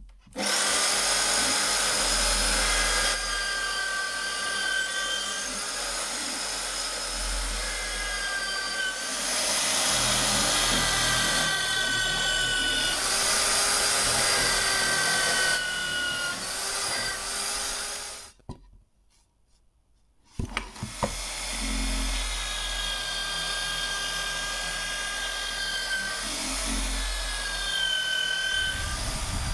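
Electric hand drill mounted in a homemade drill-press stand, running and boring holes into a plywood board; its motor whine dips and recovers in pitch as the bit bites. It stops for about two seconds about two-thirds of the way through, then runs again.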